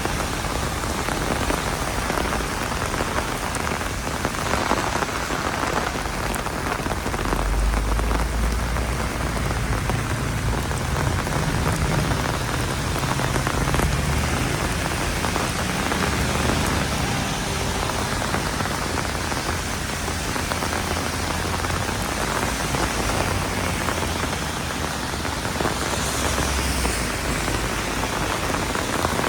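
Heavy rain falling steadily, with a low rumble coming and going underneath.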